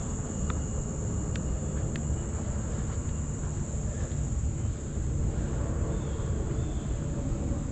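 Steady high-pitched drone of insects in the trees, unbroken throughout, over a constant low rumble.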